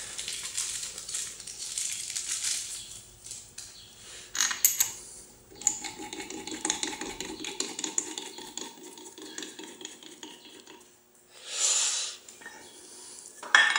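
Light metallic clinks and rustling handling noise as a new rotor bolt is fitted by hand into the crankshaft end of a Kawasaki KLR650's alternator rotor. A louder burst comes about four and a half seconds in and another near the end.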